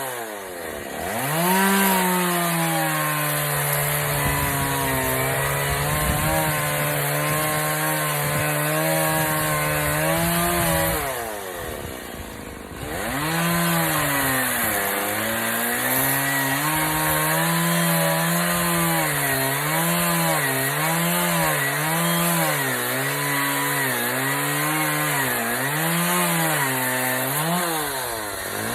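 Chainsaw running at high revs, cutting wood. It drops briefly to low revs about a second in and again about twelve seconds in. Through the second half its pitch rises and falls about once a second.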